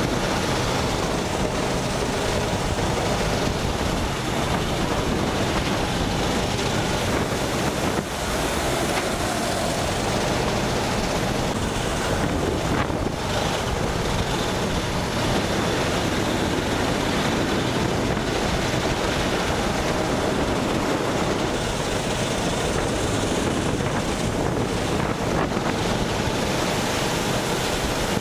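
Go-kart driven at speed, heard from onboard as a steady drone of engine and road noise mixed with wind noise on the microphone.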